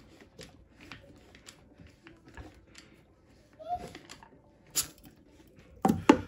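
Quick-grip bar clamp ratcheting in a run of short clicks, about two a second, as it squeezes a Ninebot Max scooter's tubeless tire to break the bead off the rim. A few louder knocks come near the end.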